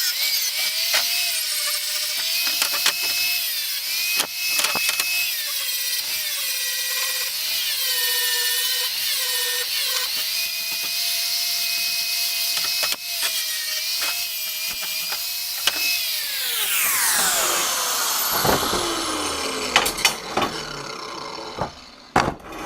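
Angle grinder grinding down welds on a metal frame, its motor pitch dipping each time the disc is pressed into the work and recovering. Near the end it is switched off and winds down in a long falling whine, followed by a few light clanks.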